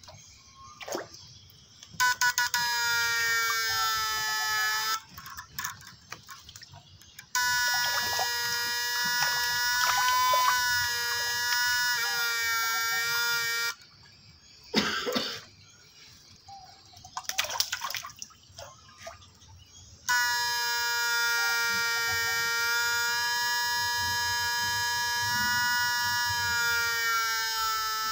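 Homemade transistor fish stunner (electrofishing inverter) giving a steady electronic whine with many overtones each time it is switched on, its pitch wavering slightly, in three runs: from about two to five seconds in, from about seven to fourteen seconds, and again for the last eight seconds. Short clicks and splashes fill the gaps, while the rods are in the pond shocking the fish.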